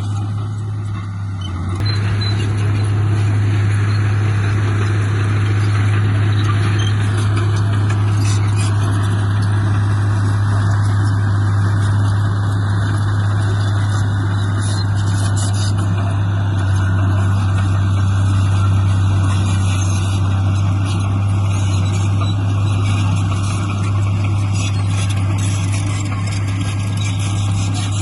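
Diesel engine of heavy earthmoving equipment running steadily under load, with a deep constant hum and mechanical clatter; it grows louder about two seconds in.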